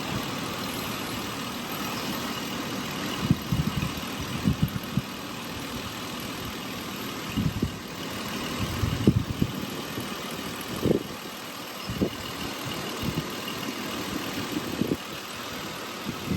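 2008 Toyota Tacoma idling steadily with the air conditioning on high while refrigerant is charged into the system. Scattered low thumps and bumps come and go over the idle.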